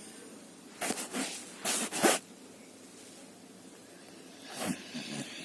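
A sleeping dog snoring: short noisy breaths, two pairs about a second apart early on, and another just before the end.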